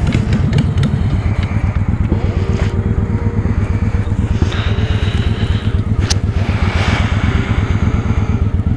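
Motorcycle engine running at low speed with an even, rapid beat of firing pulses as the bike rolls slowly and turns. A sharp click about six seconds in.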